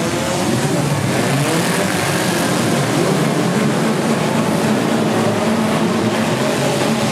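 Many four-cylinder demolition derby cars running at once, their engines revving so that several pitches rise and fall over one another.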